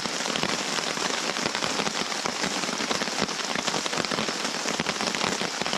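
Heavy rain drumming on a tarp overhead: a dense, steady patter of countless drops, absolutely chucking down.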